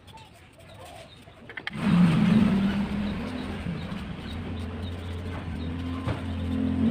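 A motor vehicle engine comes in suddenly about two seconds in and keeps running, its pitch wavering up and down and growing louder near the end.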